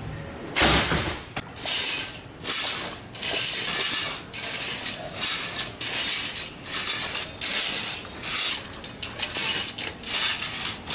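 Steel coconut-tree climbing device clanking and scraping against the palm trunk as it is worked, a rhythmic string of sharp metallic clinks and rasps more than a dozen times, about one every half second to second.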